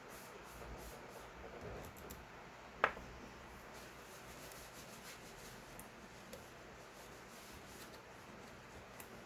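Faint handling noises of small rubbing and light ticks, with one sharp click about three seconds in.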